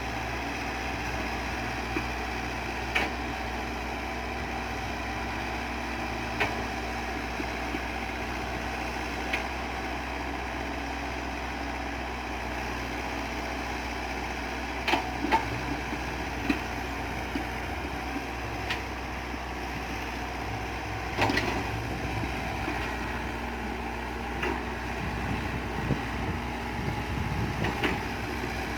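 Excavator engine running steadily, with about ten short sharp knocks or clanks spread through the sound.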